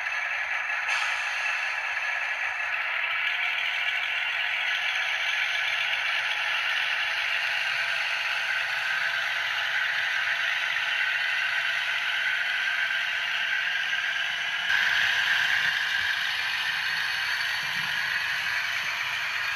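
Dapol Class 52 'Western' model diesel locomotive running along the track, a steady rolling rattle of its wheels on the rails, a little louder from about fifteen seconds in.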